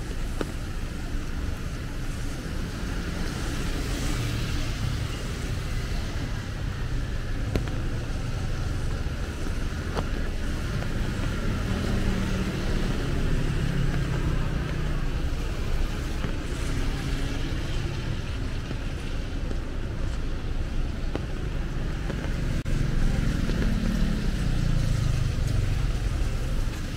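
Steady traffic on a rain-wet city road: cars and motorbikes passing, their engines and tyres on the wet surface making a continuous hiss with a low hum that swells and fades. One vehicle passes louder near the end.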